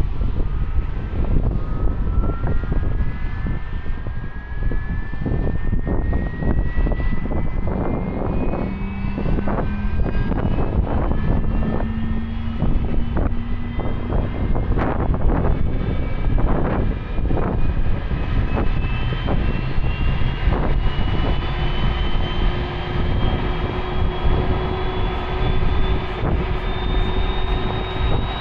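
Jet airliner engines running loud, with a whine that climbs slowly and steadily in pitch, as when the engines spool up, over a continuous rumble.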